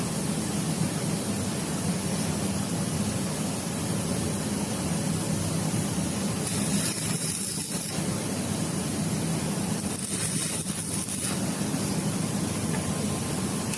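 Steady running machine noise, with two brief hissing bursts, one about halfway through and one about two-thirds of the way in.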